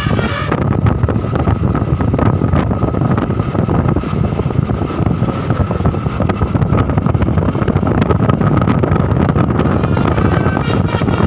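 Loud low rumble of a bus going by close, with wind buffeting the microphone. A telolet horn melody cuts off about half a second in.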